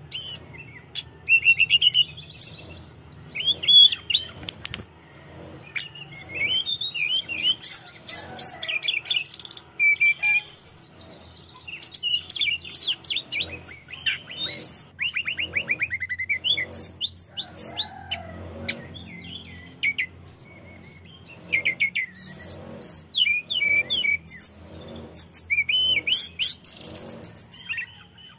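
Caged male tledekan gunung, a blue flycatcher, singing in full voice: a long run of varied high whistled phrases, quick trills and notes sweeping up and down, broken by short pauses.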